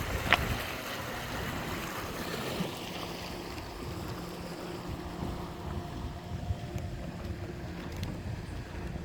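Vehicle running with a steady low rumble and a rushing noise of wind on the microphone and water. A short, sharp squeak or click about a third of a second in.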